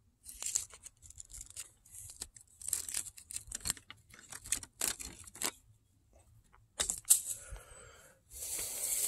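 Irregular rustling and crackling: a run of short scuffs for about five seconds, a brief pause, then a couple of sharp clicks and a longer rustle near the end.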